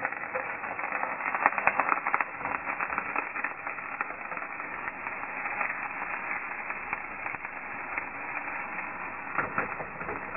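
Chopped yellow onions sizzling in hot olive oil in a frying pan, with a dense crackle about one to two seconds in that settles into a steadier sizzle.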